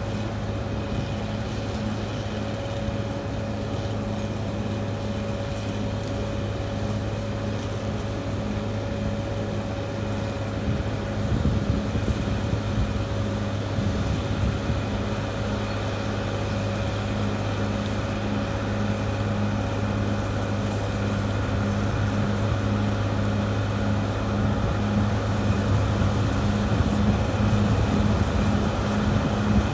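Caterpillar D6R XL bulldozer's diesel engine running steadily with an even, rhythmic pulsing, growing louder near the end.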